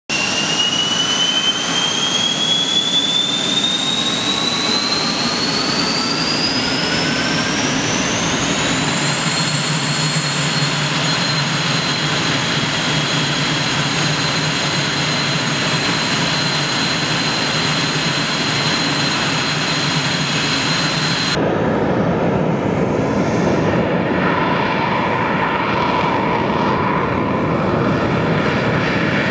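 Northrop F-5's J85 turbojet starting: a whine rises in pitch for about nine seconds, then holds steady at idle over a low rumble. About three-quarters of the way through, the sound changes suddenly to the duller, deeper jet noise of an F-5 on the runway.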